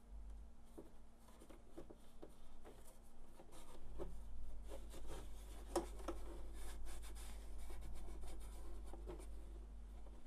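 Alcohol-soaked bandage rubbing and scrubbing over plastic and metal parts inside a laser printer during toner cleaning, with small scratches and light knocks that grow busier and louder from about four seconds in.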